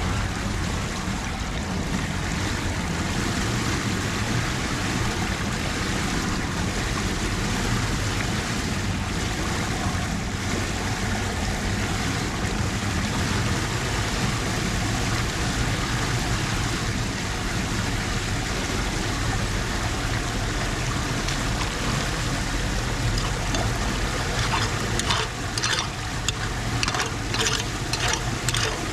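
Floodwater rushing steadily, as it does when it drains down a street storm drain. Near the end comes a quick run of clicks or scrapes.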